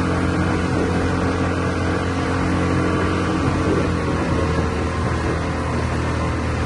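30 hp Yamaha outboard motor running at a steady speed, its engine note holding even throughout.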